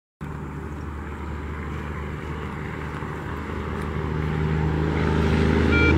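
A steady engine drone with a low hum that grows gradually louder, cutting in abruptly just after the start.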